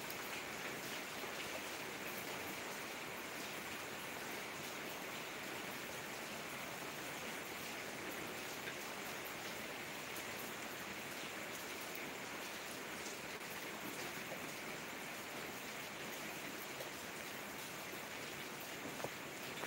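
Steady rain falling, an even hiss with scattered faint drop ticks and a single sharper tick near the end.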